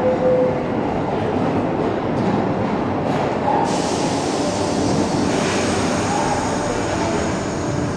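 42nd Street Shuttle subway train moving along the station platform: a steady rumble of wheels on rail, with a hiss joining in about three and a half seconds in and a few brief faint squeals.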